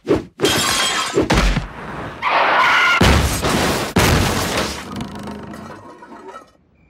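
Cartoon sound effects of a house being smashed apart: a series of loud crashes of breaking wood and shattering glass in the first few seconds, then clattering debris that fades out near the end.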